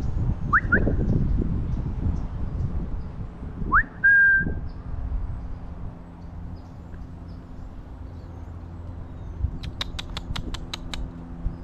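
A person whistling to call a cat: two quick rising whistles, then about four seconds in another rising whistle that ends in a short held note. Near the end comes a rapid run of about eight sharp clicks.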